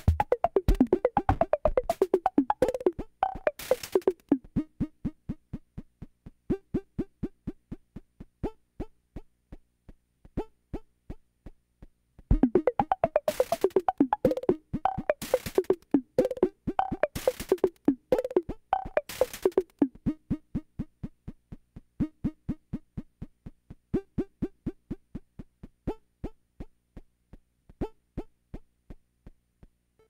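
8-bit chiptune played on a Game Boy running a Nanoloop Mono cartridge: a rapid, even pulse of short rectangle-wave blips with clicks and noise-channel hits. It is busier and louder at the start and again through the middle, sparser in between, and stops just before the end.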